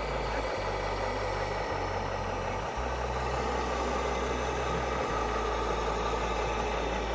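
RC scale model trucks running steadily, an even engine-like drone with no breaks.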